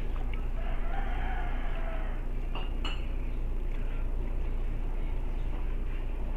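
A rooster crowing once: a long call that rises then falls, starting about half a second in and lasting about a second and a half. A single sharp click comes about three seconds in, over a steady low hum.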